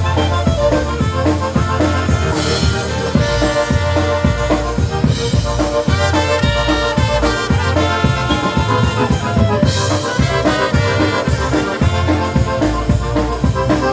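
Polka band playing the instrumental introduction of a song: trumpets and other brass leading over a drum kit keeping a steady beat.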